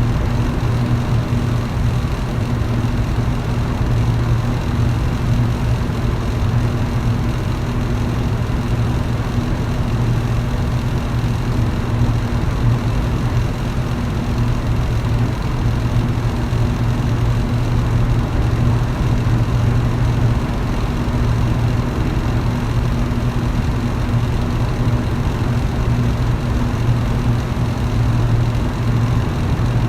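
Electric fan running steadily: a constant low motor hum with a second, higher hum over an even rush of moving air.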